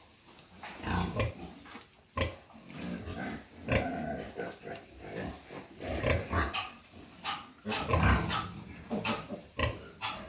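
Pigs at a farrowing, grunting in many short, irregular calls.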